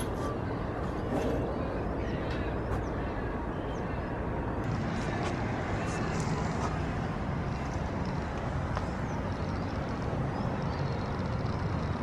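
Steady outdoor background noise with a heavy low rumble and a few faint knocks.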